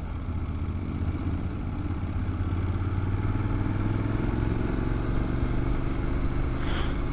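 Honda motorcycle engine running under way, its pitch rising gently over the first few seconds and then holding steady. A brief hiss comes near the end.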